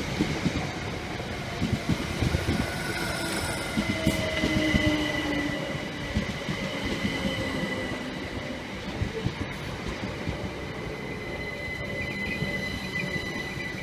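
Southern passenger train pulling into the platform and braking to a stop. Its wheels knock over the rail joints at first, and the knocking thins out as it slows, while the wheels and brakes squeal in steady high tones.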